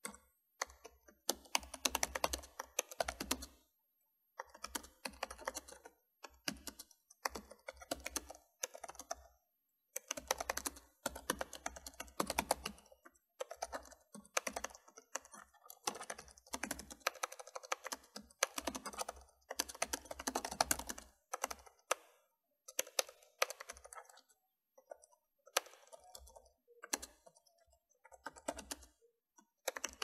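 Typing on a keyboard: runs of rapid keystrokes lasting one to three seconds, broken by short pauses.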